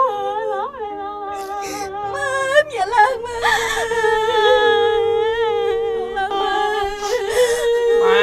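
A mournful melody sung on long held notes, with a woman crying beneath it.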